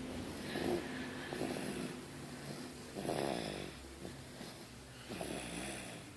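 Snoring: slow, rough snores about every two seconds over a faint low steady hum.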